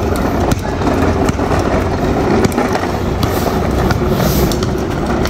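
Hard plastic wheels of a child's ride-on toy car rolling over rough, cracked asphalt, a continuous rumble, with a few sharp taps from a basketball bouncing on the pavement.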